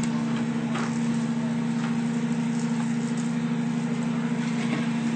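Capitol Machine Model 70 insulation blowing machine running with a steady hum, blowing loose fiberglass through the hose into a netted wall cavity.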